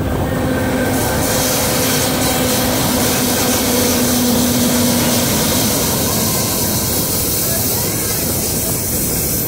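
Electric multiple unit in motion, heard on board: loud rushing wheel-and-rail noise with a steady electrical hum that stops about five seconds in.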